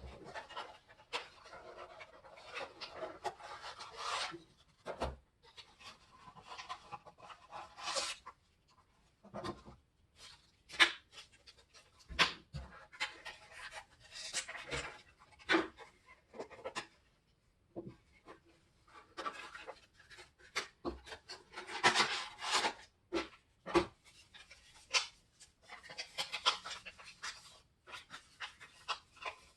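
A product box being opened by hand: irregular rustling and scraping of the packaging, broken by many short sharp crackles and clicks.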